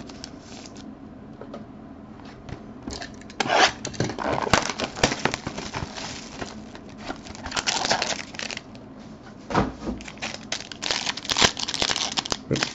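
Foil trading-card pack being torn open and crinkled by hand, in crackling bursts that start about three seconds in, with a dull thump about halfway through.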